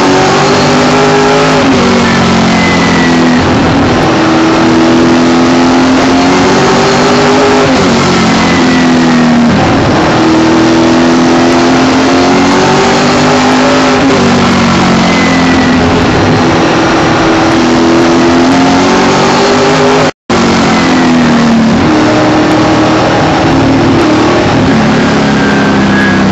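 Late model stock car's V8 engine heard from inside the cockpit at racing speed, very loud. Its pitch rises and falls every few seconds as the car accelerates down the straights and lifts for the turns. The sound cuts out for an instant about twenty seconds in.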